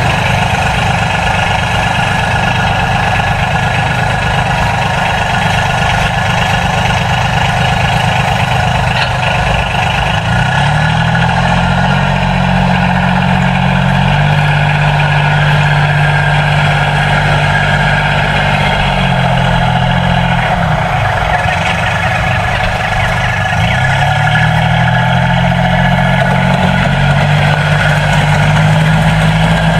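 Tractor engine running steadily, its pitch rising about 11 seconds in, dropping back around 20 seconds in and rising again near 24 seconds.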